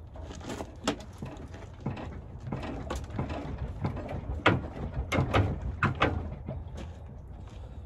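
Irregular metal clanks and knocks, some ringing briefly and loudest about halfway through, from tools and parts being worked under a vehicle while its 4L60E automatic transmission is being taken out.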